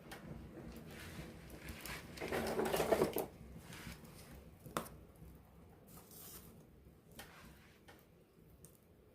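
Wood campfire burning close up, with small crackles and pops. A louder rushing swell comes about two seconds in, and one sharp crack near the middle.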